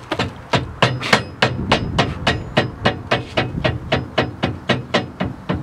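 Rubber mallet striking a steel truck frame cross-member in a steady run of quick blows, about three or four a second, knocking it into place.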